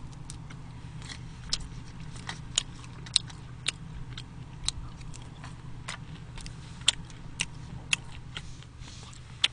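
A person chewing fried dumplings close to a microphone: irregular crisp crunches and mouth clicks over a steady low hum.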